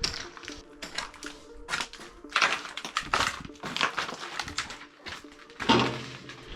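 Footsteps crunching and scuffing over a debris-strewn floor: an irregular run of crunches, with a louder one near the end.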